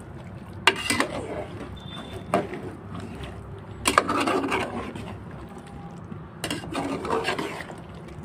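Flat metal spatula stirring thick chicken curry in a metal pot, scraping along the pot with a handful of sharp clinks where it knocks the sides.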